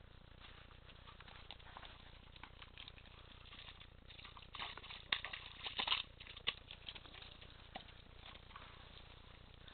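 Dry leaves and twigs rustling and crackling underfoot in bare brush, as scattered faint crackles with a louder run of crackling and snapping about five to six seconds in.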